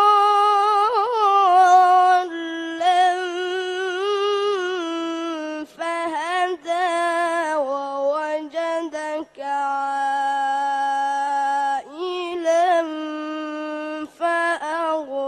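A boy's high voice reciting the Quran in melodic tajweed style through a microphone, holding long, ornamented notes broken by several short breaths.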